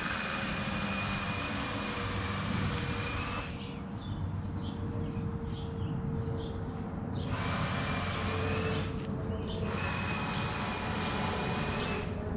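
A motor-driven machine running steadily, with a thin high whine over a dense noise. The high part fades out twice for a few seconds, then comes back.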